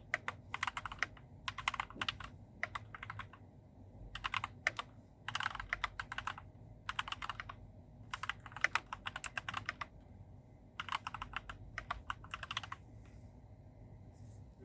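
Mechanical keyboard with Gateron G Pro 2.0 Brown tactile switches and ABS keycaps (a Keychron C2) being typed on in quick bursts of key clicks with short pauses between them. The typing stops about a second before the end.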